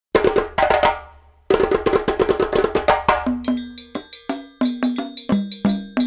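Background music of quick, crisp percussive strikes, with a short gap about a second in and short pitched notes joining from about halfway.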